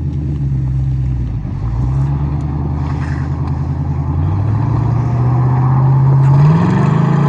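Car engine running under load during a tow-rope recovery pull on ice. The engine revs up about four seconds in and climbs higher near the end.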